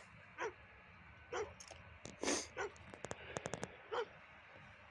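A dog giving short separate yelps, about one a second, with a louder, rougher one a little over two seconds in; a quick run of clicks about three seconds in.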